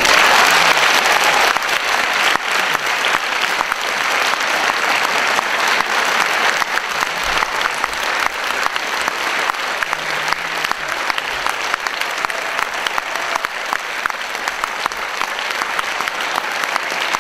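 A concert audience applauding, with orchestra players joining in. It starts suddenly and is loudest for the first couple of seconds, then carries on as steady, dense clapping.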